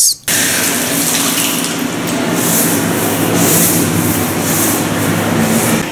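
Stiff push-broom bristles scrubbing a wet concrete cistern wall: a steady hiss, with strokes swelling roughly once a second in the second half, over a low steady hum.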